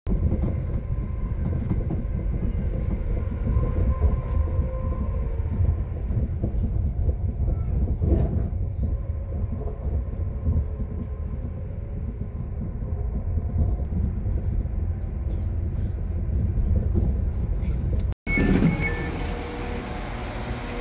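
Cabin sound inside a Class 195 diesel multiple unit pulling out and running along the line: a steady low rumble of the underfloor diesel and the wheels on the rails. Near the end it cuts abruptly to a station platform with a steady hum and a held tone.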